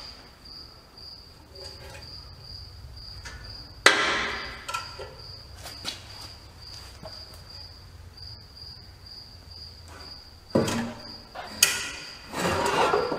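Sharp metal knocks and clanks as a 4R70W transmission is worked loose and lowered on a transmission jack: one loud knock about four seconds in, two more near the end, then a brief rattle. A faint, steady high chirp pulsing about three times a second runs underneath.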